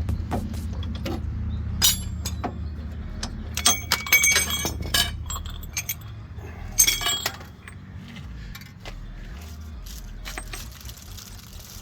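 Metal tools and parts clinking and jangling as they are handled, with a few ringing metal clanks about two, four and seven seconds in, over a low steady hum that fades about seven seconds in.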